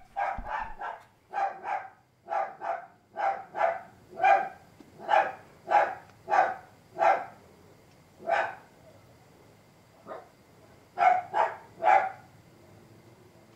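A dog barking repeatedly, single barks and quick pairs, with a gap of about two seconds near the end before three last quick barks.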